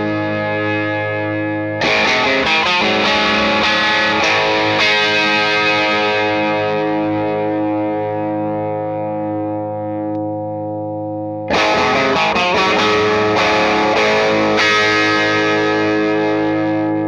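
Electric guitar played through a Jackson Audio Golden Boy Mini overdrive pedal: overdriven chords strummed and left to ring, with a fresh run of strums about two seconds in and again past the middle. Near the end the pedal is switched to its LED clipping mode.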